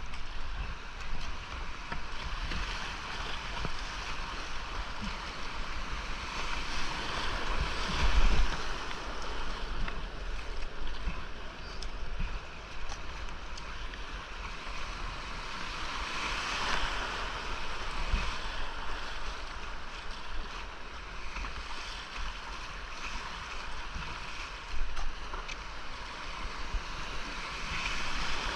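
Rushing creek whitewater heard from a kayak running rapids, with wind noise and a few knocks on the microphone. The water noise swells twice, about 8 and 17 seconds in.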